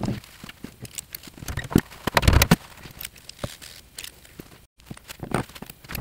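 Metal parts of a Taig mini lathe being handled on the bench: the aluminium tool post and tailstock are lifted, set down and fitted, giving a string of small clicks and clunks. The loudest knocks come in a quick cluster about two seconds in.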